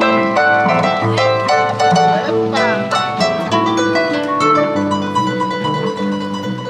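A harp played live: a quick plucked melody over a bass line, with a fast sweep across the strings about two and a half seconds in. It grows a little fainter near the end.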